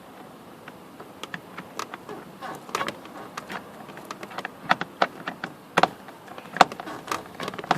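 Irregular clicks and small knocks of screws being driven into a car door handle with a screwdriver. The louder clicks cluster in the second half.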